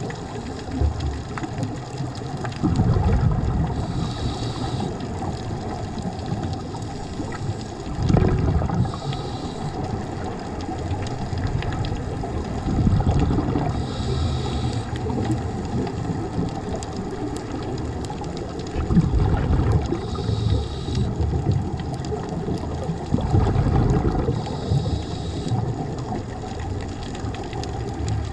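Scuba diver breathing through a regulator underwater: a low burbling rush of bubbles followed by a short hiss, repeating about every five seconds over a steady underwater wash.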